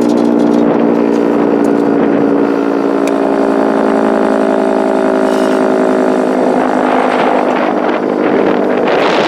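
Federal Signal 3T22 three-tone electromechanical fire siren sounding its chord at a steady pitch. About two-thirds of the way through the tones fade and a rushing noise takes over.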